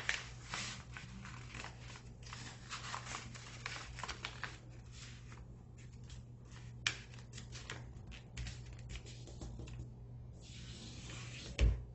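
A sheet of paper being folded and its crease pressed flat by hand on a wooden tabletop: a run of rustles and short crinkles, with a sharp tap a little past the middle and a louder thump near the end, over a steady low hum.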